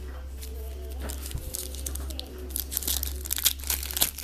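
Foil wrapper of a Topps baseball card pack crinkling and tearing as it is opened, with a flurry of sharp crackles in the second half, over a steady low hum.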